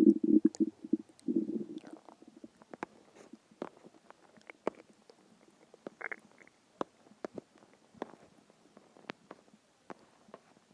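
Human stomach growling from hunger: a low rumble trailing off in the first second, a second short growl just before two seconds in, then faint scattered gurgles and pops.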